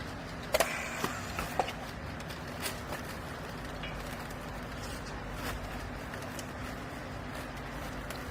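Steady hum of a baling press's motor and pump running, with several sharp knocks and clicks, the loudest about half a second in.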